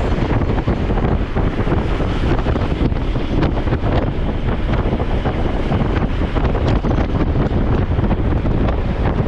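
Heavy wind buffeting on the microphone of a camera carried by a rider on a moving road bicycle: a loud, steady rush.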